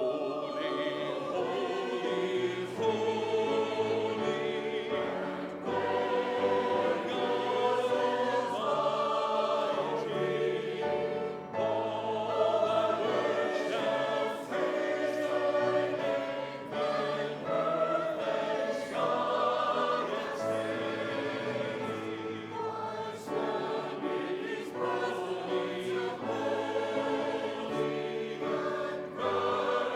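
Church choir singing, many voices moving together in harmony through a sustained sung piece.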